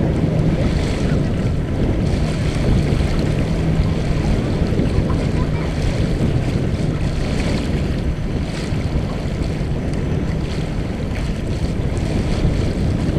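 Wind buffeting the microphone over the rush of water along the hull of a Mumm 36 sailboat under sail, with bow waves splashing every second or two.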